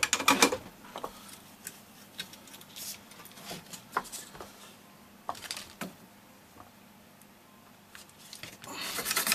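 Scattered clicks, taps and rustles of tools being handled at a workbench. Near the end a brush starts scrubbing rapidly back and forth over an electronic circuit board wet with isopropyl alcohol.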